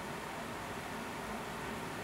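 Heavy rain falling steadily, an even hiss with no single drops or thunder standing out.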